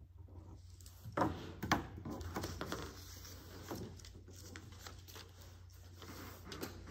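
Paper sheets rustling and shuffling as they are passed across a table, with two sharp knocks about a second and a half in and smaller clicks of handling after.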